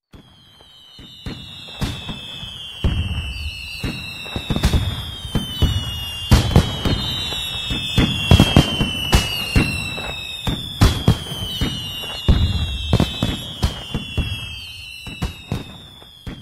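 Fireworks going off: repeated sharp bangs and crackling pops over a low rumble, with whistling shells that glide down slightly in pitch every second or two. The sound fades away near the end.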